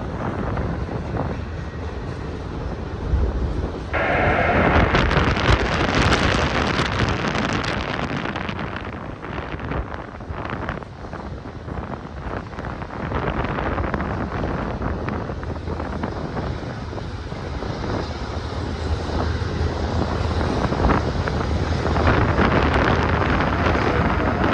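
Strong gusty wind buffeting the microphone over the low rumble of a passing freight train. The wind noise jumps up sharply about four seconds in, then rises and falls with the gusts.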